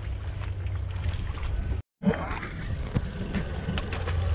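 Steady low rumble aboard a fishing boat at sea, with water noise. After a cut about two seconds in there is a splash in the water beside the hull and a few short knocks.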